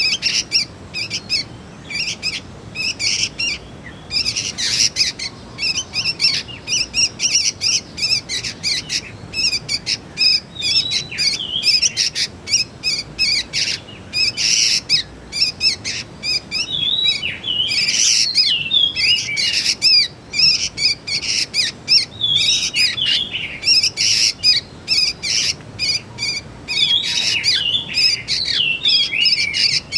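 Juvenile sooty-headed bulbul calls: a rapid run of short, high chirps, with wavering warbled phrases mixed in from about ten seconds in.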